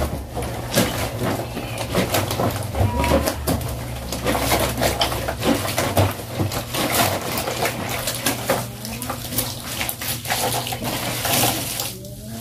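Clothes being scrubbed and kneaded by hand in a plastic basin of soapy water: irregular wet sloshing and splashing that eases off near the end.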